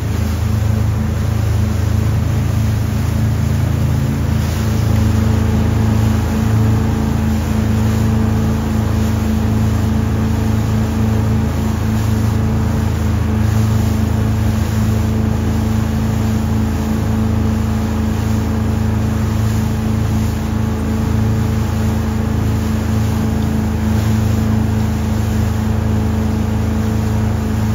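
Fishing boat's engine running steadily under way, a constant low drone with a steady rushing noise over it.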